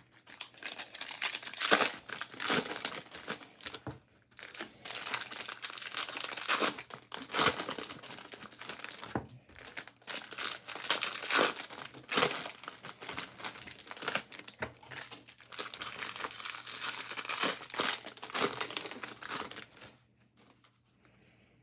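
Bowman Draft trading-card pack wrappers being torn open and crinkled by hand, rustling on and off and stopping shortly before the end.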